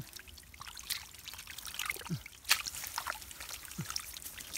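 Hands scooping and sloshing through shallow liquid mud and water, with irregular wet splats, trickles and short gurgles. The loudest splash comes about two and a half seconds in.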